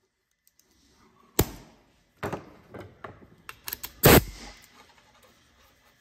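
Metal clicks and clatter of Merlin aluminium quick-connect air couplers being handled and snapped on and off, with one short loud burst about four seconds in. Between the clicks there is no steady hiss: the couplers hold air without leaking.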